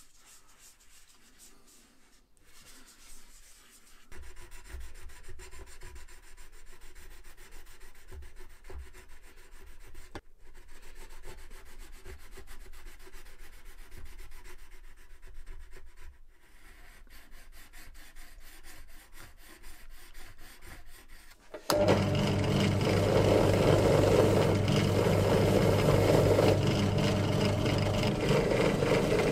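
Prongs of a Joseph Dixon pricking iron being rubbed back and forth by hand on a flat sharpening stone: a gritty scraping with small knocks. Near the end, a drill press with a wheel in its chuck starts abruptly and runs steadily, much louder than the rubbing.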